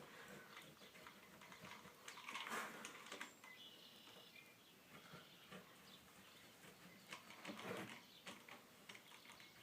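Near silence with faint rubbing and scraping twice, about two seconds in and again near the end, plus a few small clicks: rubber spline being pressed into a window screen frame's channel.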